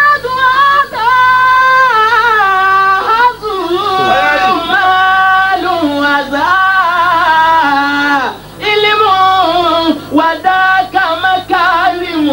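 A man singing an Arabic poem solo and unaccompanied into a microphone, in long, wavering, ornamented held notes with short breaks for breath between phrases.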